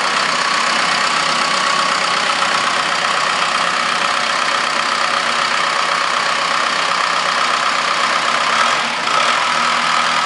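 Cummins 4T-390 (BT3.9) turbocharged four-cylinder diesel running steadily at idle, with a brief dip in loudness about nine seconds in.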